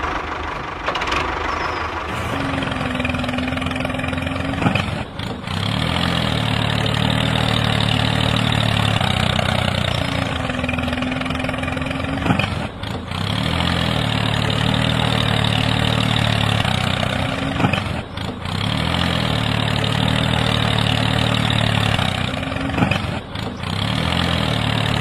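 Tractor engine running at a steady idle, dropping out briefly every five to six seconds.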